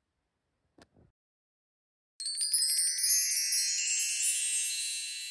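Near silence, then about two seconds in a twinkling chime sound effect starts suddenly: a cascade of many high, bell-like tones that slowly fades out.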